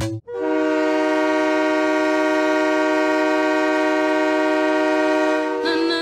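Ice hockey arena goal horn sounding one long, steady chord of several notes for about five seconds, changing to a slightly different, wavering tone near the end.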